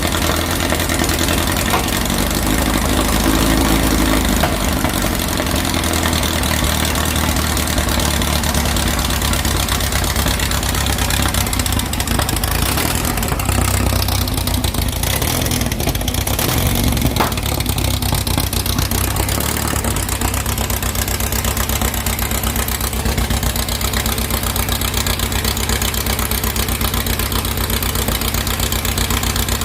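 2332cc air-cooled VW flat-four, fed by dual Empi HPMX 44 carburettors, running steadily near idle. Its speed shifts a little about three seconds in and again around the middle.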